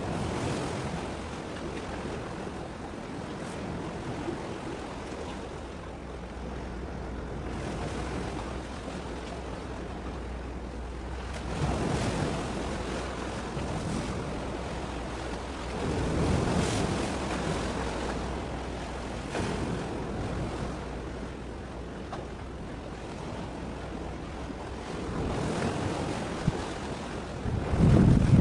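Wind blowing on the microphone over the wash of the sea, with a low steady rumble underneath. Louder gusts hit about twelve and sixteen seconds in, and the strongest comes near the end.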